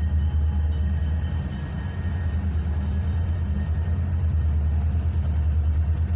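Steady low rumble of a freight train's diesel locomotive engines.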